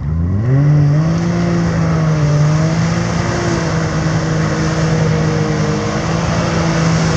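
Can-Am Maverick X3's turbocharged three-cylinder engine revving up in the first second and then held at high, steady revs under a constant hiss.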